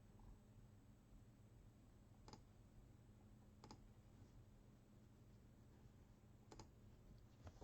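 Near silence with about four faint, isolated clicks spread a second or more apart.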